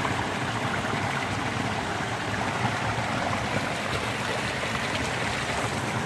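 Flowing water running steadily, a constant rushing like a small stream.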